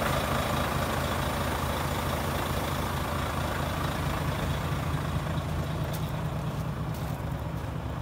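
Volvo FH500 truck's 13-litre six-cylinder diesel idling steadily.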